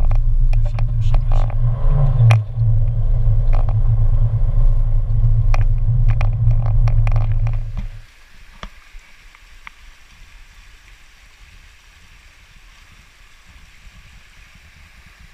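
Car road noise heard inside the cabin: a loud, steady low rumble with scattered knocks. About eight seconds in it gives way to the much quieter, steady rushing of a small rocky stream.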